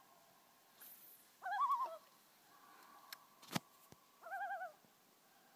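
Common loons giving two short, quavering tremolo calls, one about a second and a half in and another a little after four seconds. A single sharp click falls between them.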